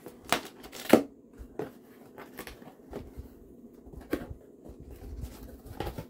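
Cardboard shipping box being opened by hand: packing tape ripped off and the cardboard flaps pulled open, in a series of short sharp rips and cracks, the loudest about a second in.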